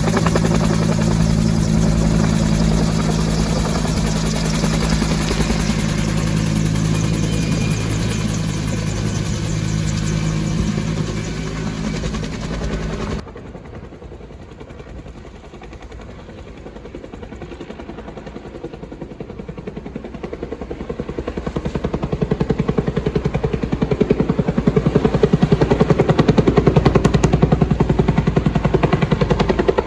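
Bell 205 Huey helicopter's turbine and two-blade rotor running loudly and steadily. About thirteen seconds in the sound cuts abruptly to a quieter helicopter whose rapid rotor beat grows steadily louder.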